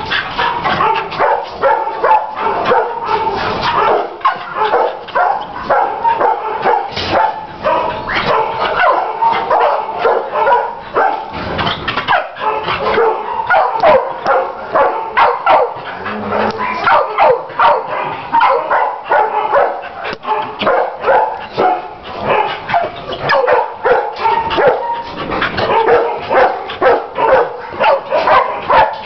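Several shelter dogs barking at once in their kennels, a continuous din of overlapping barks and yips with no pause.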